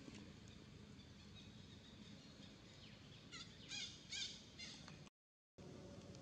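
Faint outdoor background with a quick run of short, high chirping calls a little over three seconds in, followed by a brief total gap in the sound near the end.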